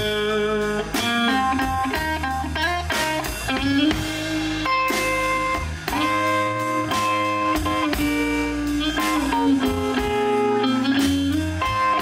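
Live slow blues-style band music: an electric guitar solo on a Stratocaster-style guitar, with sustained notes and string bends, over bass guitar and a drum kit keeping a steady beat.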